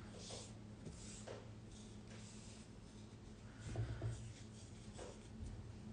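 Faint, soft rubbing and swishing of embroidery floss being separated and handled between the fingers, in several short strokes, with a slightly louder handling bump about four seconds in, over a low steady hum.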